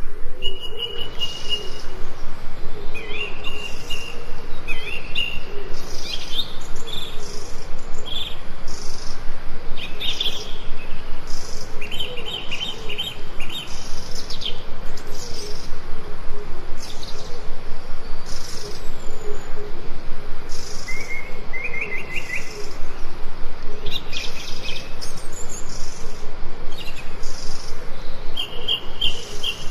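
Forest birds chirping and singing, several species at once: short high chirps and quick trills repeating throughout, with a lower wavering call beneath them, over a steady background hiss.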